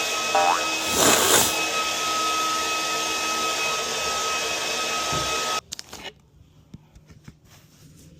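A machine runs with a steady rushing noise and a high whine, briefly louder about a second in, then cuts off suddenly about five and a half seconds in, leaving a few faint clicks.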